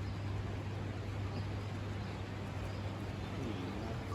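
Steady hiss of falling rain with a constant low hum underneath.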